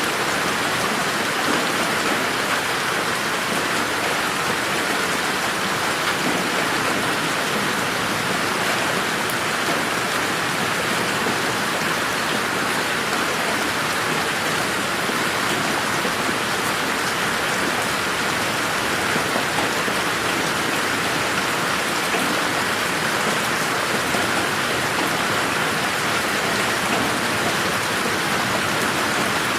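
Steady rain falling on a garden: an even, unbroken hiss.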